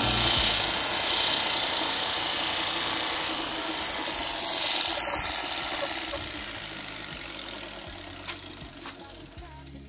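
Steady mechanical running noise, like a machine or engine, that gradually fades out.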